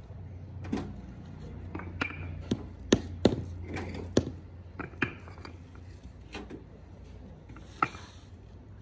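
Heavy paving blocks knocking and clacking as they are lifted out of a steel wheelbarrow and set down on one another: about eight sharp, irregular knocks. A low steady hum sits under them and fades out about two thirds of the way through.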